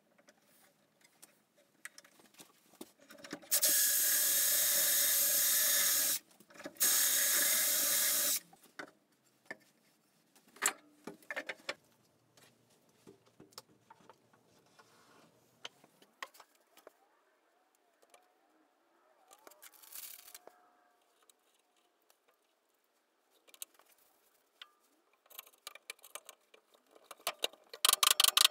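A small power tool runs steadily twice, a few seconds each time, followed by scattered light knocks of wood and clamps being handled. Near the end a quick series of sharp clicks sounds as a bar clamp is ratcheted tight.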